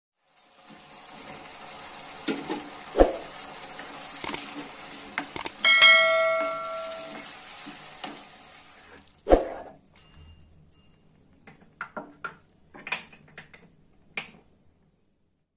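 Eggplant pieces frying in tomato masala in a nonstick pan, with a steady sizzle while a spatula stirs and knocks against the pan. A ringing tone sounds for about a second and a half near the middle. After about nine seconds the sizzle fades, leaving scattered clinks and scrapes.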